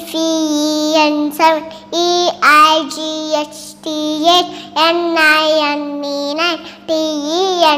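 A young girl singing in a chant-like sing-song, with long held notes and short breaks between phrases. A faint steady low hum runs underneath.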